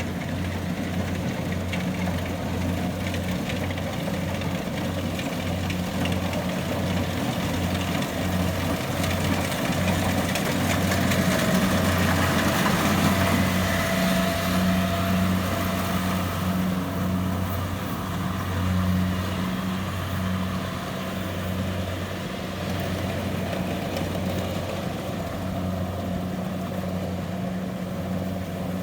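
A heavy engine of rice-harvesting machinery running steadily with an even low throb, growing louder for a few seconds mid-way, when a faint whine joins it.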